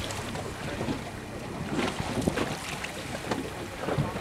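Wind gusting on the microphone over the wash of open sea water, heard from a boat.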